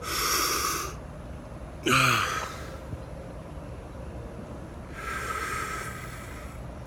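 A man's hiccup about two seconds in: a sudden, short, loud voiced gulp. Breathy sounds come before it, and a longer breath near the end.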